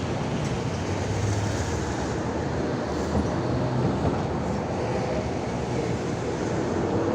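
Steady rumble of a running vehicle, with a low engine hum under a wash of noise.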